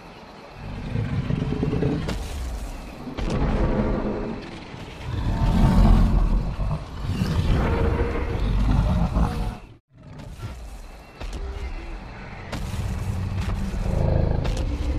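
Dinosaur call sound effects: a series of deep roars and bellows, each swelling and fading over one to two seconds. The sound cuts out completely for a moment about ten seconds in.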